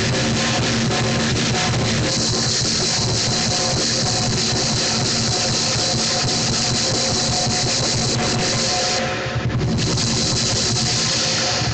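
Lion dance percussion: a large drum beaten in rapid, steady strokes under continuously clashing cymbals. The cymbals drop out briefly about nine seconds in, then resume.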